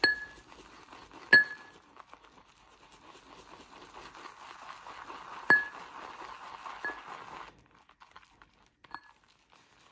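Synthetic shaving brush whipping shaving-soap lather in a ridged lather bowl: a soft, steady wet swishing as the lather is built up and thickened, with a few sharp ringing clinks as the brush knocks against the bowl. The loudest clinks come about a second and a half in and again past the middle. The swishing stops about two seconds before the end.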